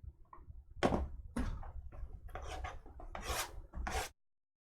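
Trading card box being opened by hand: several rough scraping and rustling strokes of cardboard and wrapping, then the sound cuts off abruptly.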